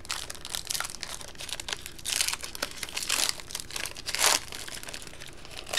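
Foil wrapping on trading-card packs crinkling as it is handled, in a series of rustling bursts, loudest about two, three and four seconds in.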